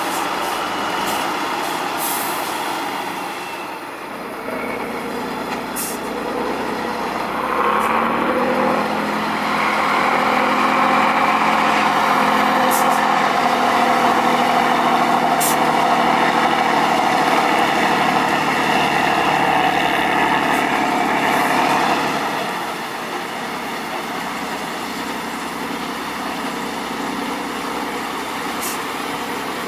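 Tatra 815 8x8 trial truck's diesel engine running under load as it crawls through sand, pulling harder and louder from about eight seconds in and easing back a little after twenty-two seconds. A few brief sharp ticks are heard over it.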